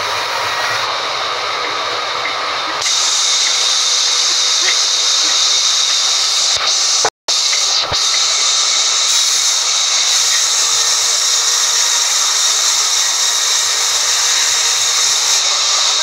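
Sawmill band saw running and cutting through a mahogany log with a steady, loud hiss. The sound grows louder and brighter about three seconds in and cuts out for an instant a little past the middle.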